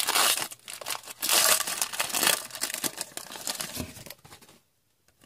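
A hockey card pack's wrapper being torn open and crinkled by hand, in irregular crackling bursts that die away about four and a half seconds in.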